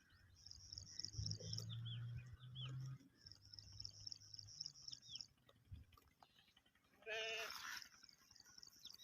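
A goat bleats once, a short wavering bleat about seven seconds in. Between the bleats there are repeated high chirping trills, and a low hum in the first few seconds.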